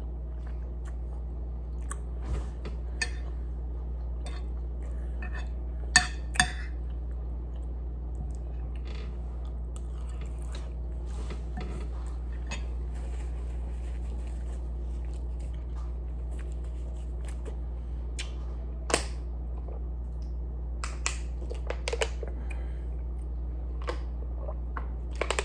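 Eating at close range: chewing of chicken and rice with occasional fork clinks on a plate, and a few sharp clicks, the loudest two about six seconds in and another near nineteen seconds, over a steady low hum. A plastic water bottle is handled and drunk from near the end.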